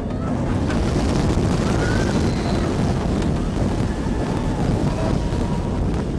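Wind rushing over the microphone and the steady rumble of the Raptor steel inverted roller coaster running along its track, heard from on board the train.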